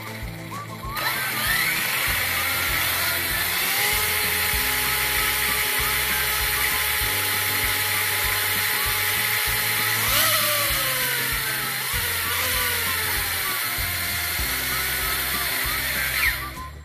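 Arrma Kraton RC truck's electric motor and drivetrain whining at high speed as its wheels spin in the air, flinging out water trapped inside the tires. It starts about a second in, dips and climbs in pitch about two-thirds through, and stops just before the end.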